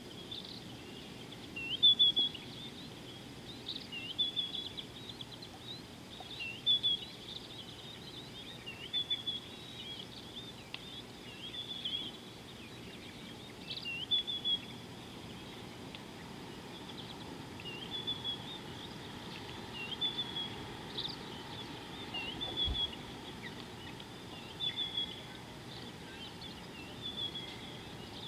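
A small bird calling over and over: short, high chirping phrases every second or two, over a faint steady background hiss.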